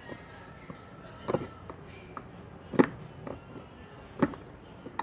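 Plastic action-camera mount pieces clicking and knocking against each other and the helmet shell as they are pushed together by hand: four or five sharp clicks, the loudest about three seconds in.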